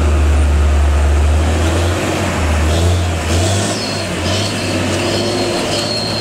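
Diesel engine of a heavy Hino box truck labouring round a steep hairpin bend, its low drone loudest for the first two seconds and then easing. A thin high squeal comes in about halfway through.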